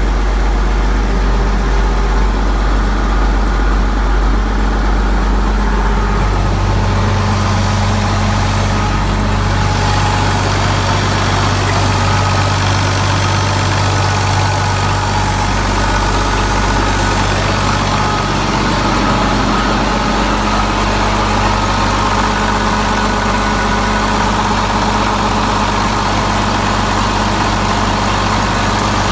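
Allis-Chalmers 210 tractor's diesel engine running at idle on its first start after winter storage, its low drone stepping up in pitch about six seconds in and shifting again around twenty seconds in.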